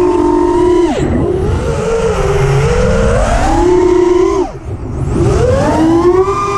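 Mini FPV quadcopter's brushless motors whining as the throttle changes, the pitch rising and falling, with two sharp drops: about a second in and again past the middle. The quad is flying with a motor the pilot calls bad.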